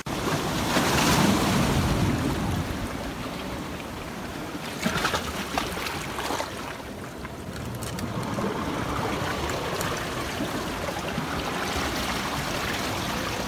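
Ocean surf washing against rocks along the shore, swelling loudest about a second or two in and then settling to a steady wash. A few brief knocks come around five to six seconds in.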